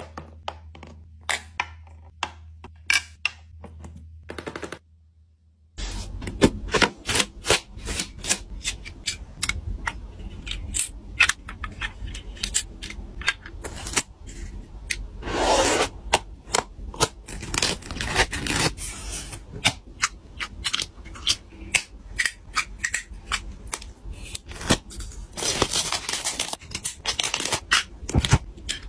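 Close-up taps and clicks of small plastic and paper toy pieces being handled and set down, many sharp ticks in quick succession. A few longer rubbing, peeling sounds come in the middle and near the end as paper stickers are worked with a tool.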